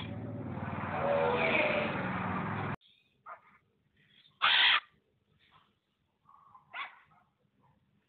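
A lion growling, cut off abruptly just under three seconds in, then a few short, scattered macaw squawks, the loudest near the middle.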